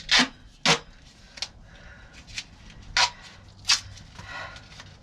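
Plastic zip tie being cinched tight around wiring: several short, sharp zipping rasps as the strap is pulled through its ratchet a notch at a time.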